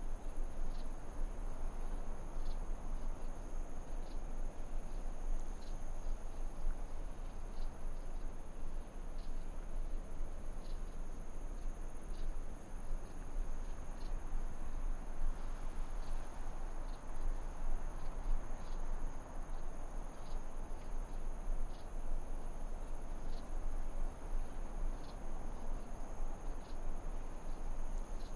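Insects chirping: a steady high-pitched trill with short chirps repeating about once a second, over a steady rushing noise.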